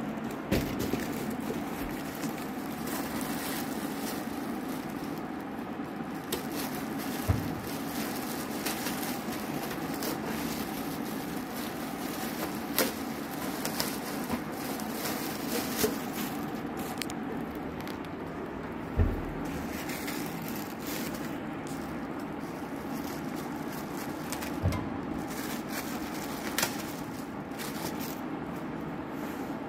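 Plastic wrapping and packaging crinkling and rustling as a steel tasha drum is unwrapped by hand, broken by a few sharp knocks as the drum is handled and set down. A steady hum runs underneath.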